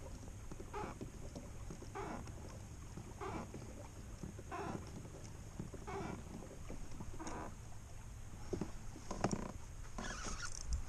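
A kayak being driven through the water with regular strokes, a swish about every second and a quarter. A few louder knocks and rustles come near the end.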